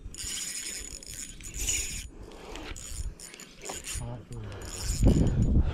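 Fishing reel being cranked in short, irregular spells.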